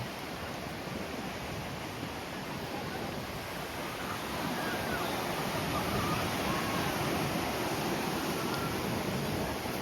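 Strong wind rushing over the microphone: a steady noise with uneven low rumbling, a little louder from about halfway in, and faint distant voices behind it.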